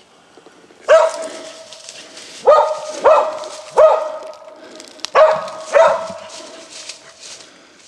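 A coonhound barking treed at a raccoon: six loud barks in about five seconds, each drawn out into a held note that fades.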